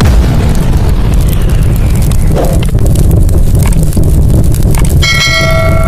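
Intro sound effects: a loud, continuous rumble with crackles, like fire or an engine. About five seconds in, a bright chime of several tones rings out as an on-screen subscribe button is clicked.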